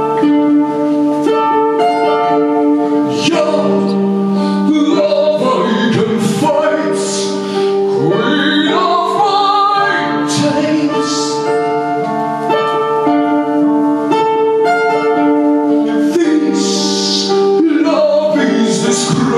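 Live band music with singing over steady held chords.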